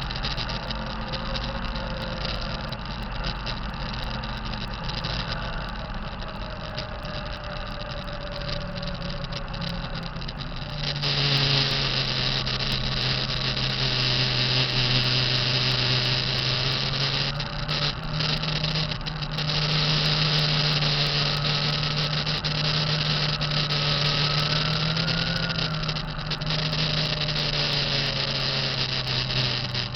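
2005 Kenworth T660 truck's diesel engine running with its turbo, the turbo being the suspected source of a bad sound. About eleven seconds in, the engine speeds up and gets louder, and a strong high hiss comes in with it. It eases back briefly twice later on.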